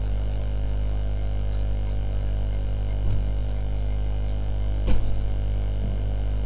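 Steady electrical mains hum picked up in the recording: a constant low drone with evenly stacked overtones that does not change. A few faint clicks sit over it, the clearest about five seconds in.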